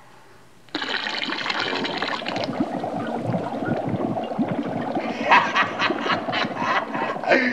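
Liquid poured into a cauldron of potion, which bubbles and gurgles. It starts suddenly under a second in with a fizzing hiss for the first couple of seconds, and the bubbling flares up again near the end.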